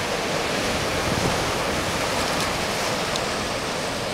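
High-tide surf washing up a boat ramp and spilling onto the pavement: a steady rush of breaking, foaming water, with wind buffeting the microphone in a rough low rumble.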